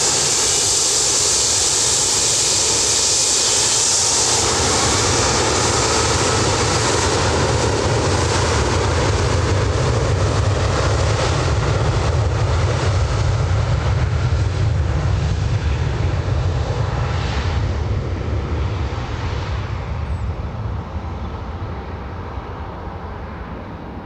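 Boeing 757-200 airliner on its take-off roll, its twin jet engines at take-off thrust: a loud, continuous jet noise with a strong high hiss at first, then a deep rumble as it passes, fading over the last several seconds as the aircraft speeds away down the runway.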